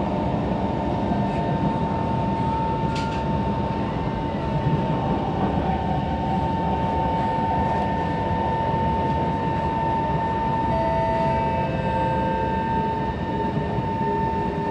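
SMRT C151 metro train running at speed, heard inside the car: a steady rumble of wheels on rails under a constant whine from the traction motors, with a few fainter extra tones joining about two-thirds of the way through.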